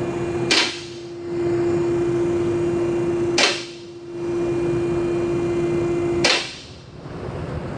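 Two-post vehicle lift raising a pickup truck: the lift's pump motor runs with a steady hum while the safety latches clack sharply three times, about three seconds apart. The hum stops at the last clack.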